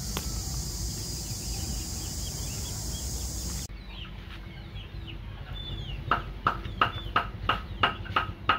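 A chicken clucking in a quick run of short repeated calls, about three a second, starting about six seconds in. Before that comes a steady high hiss over a low rumble.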